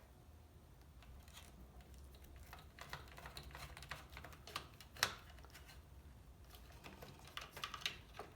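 Light clicks and taps of small parts being handled while the white wire of a new power cord is fitted into a circular saw: a sharper click about five seconds in, and a quick run of clicks near the end.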